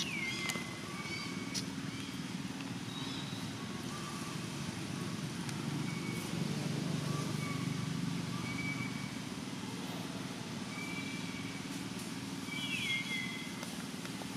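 Outdoor ambience: a steady low rumble like distant engine noise, with occasional thin, high calls on top. Two of the calls slide downward in pitch, one at the start and one about 13 seconds in.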